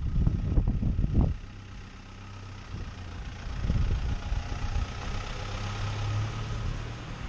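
Land Rover Defender's diesel engine running as it drives slowly across the yard toward and past, growing louder as it draws near about six seconds in. A few low thumps come in the first second or so.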